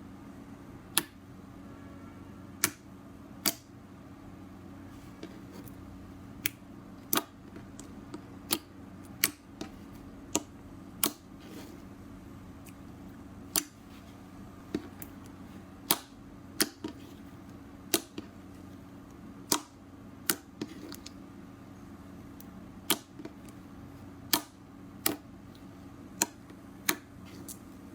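Slime being squeezed and worked by hand, trapped air popping out in sharp, separate clicks about once a second at uneven intervals, over a steady low hum.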